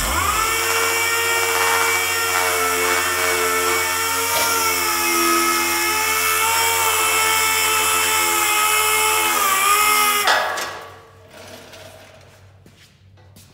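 Air-powered random orbital sander running against a welded steel bumper, smoothing the ground-down welds. It makes a steady whine that starts at once, holds for about ten seconds, then cuts off and spins down.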